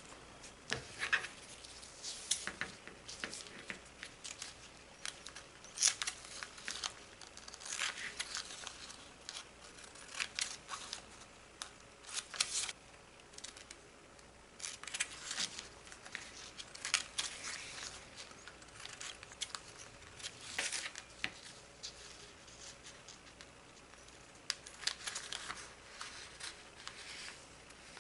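Scissors cutting out a model rocket parachute from its sheet: irregular runs of short snips, with brief pauses between them.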